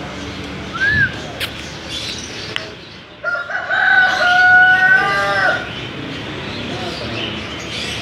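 A rooster crows once, a long even call of a little over two seconds starting about three seconds in. Just before it a short bird chirp is heard.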